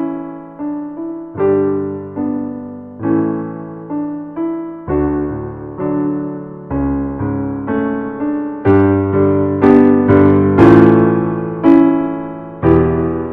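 Background music on a piano-like keyboard: slow chords and melody notes, each struck and left to fade, one or two a second, swelling louder a little past the middle.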